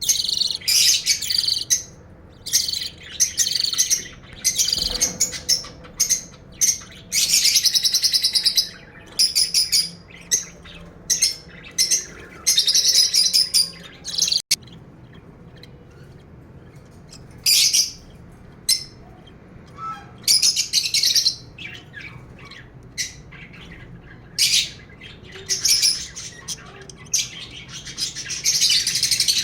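Birds chirping in repeated bursts of quick, high-pitched notes, each burst lasting up to a couple of seconds with short pauses between. There is a brief break in the sound about halfway through.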